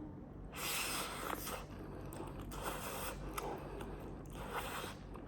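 Close-miked eating of cheesy Buldak spicy noodles, the first bite: mouth and chewing noises in about three long, hissy stretches.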